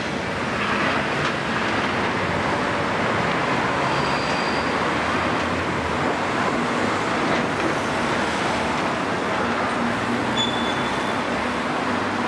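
Heavy demolition excavator running under load as its attachment crunches through a concrete building, a steady dense din with a few faint knocks of falling debris.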